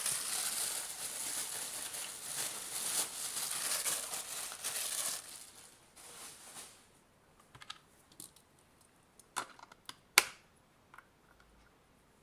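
Rustling and scraping handling noise for about five and a half seconds, then light scattered clicks and taps of small parts being handled, the sharpest about ten seconds in.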